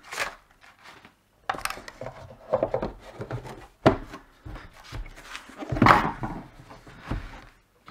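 A plastic tractor instrument-cluster housing handled and turned over on a rubber work mat: irregular rubbing and scraping with a few knocks, the loudest about six seconds in. A tissue rubs over the display glass at the start.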